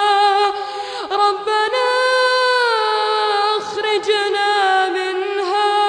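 A young boy's voice reciting the Quran in melodic tajweed style, drawing out long held notes with small ornamental turns in pitch, broken by a couple of short pauses.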